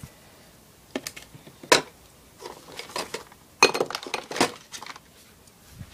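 Clicks and clatters of a small plastic eyeshadow palette being handled and opened. A sharp click comes just under two seconds in, then a quick run of clattering knocks a little past halfway.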